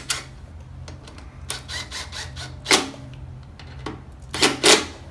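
Cordless impact wrench running the front brake caliper mounting bolts down in four short bursts of rapid clicking, the last the loudest, over a steady low hum.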